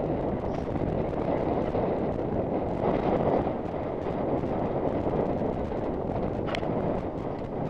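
Wind buffeting a helmet-mounted camera's microphone as the horse gallops across turf, with its hoofbeats thudding underneath in a steady rhythm.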